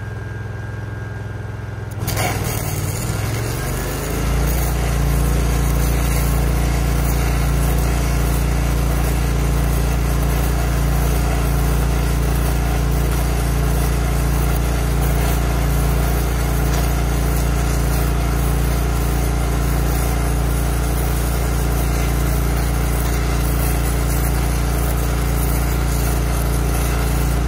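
Airless arc gouging rod (Electra AAA, run on DCEN) arcing against the steel of an excavator bucket's cutting edge: a steady loud crackle and hiss that strikes up about two seconds in. A truck-mounted engine-driven welder picks up from idle under the arc load a couple of seconds later and runs with a steady low drone.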